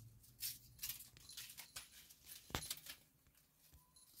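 Crumpled paper ball crinkling and skittering in irregular light crackles as a kitten bats at it, with one sharp knock about two and a half seconds in.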